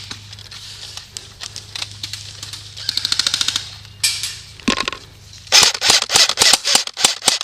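Airsoft guns firing: scattered single shots, then a rapid full-auto burst about three seconds in, followed by louder single shots and short bursts in the last two seconds.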